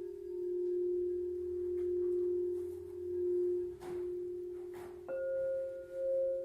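A quartz crystal singing bowl tuned to F, played and ringing with a steady tone that swells and fades in slow waves. About five seconds in, a rose quartz crystal bowl tuned to C, a fifth above, comes in suddenly with a higher tone, and the two ring together.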